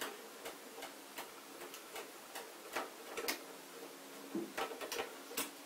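Light, irregular clicking of a screwdriver working a screw in a desktop PC's DVD drive mounting, roughly two or three clicks a second.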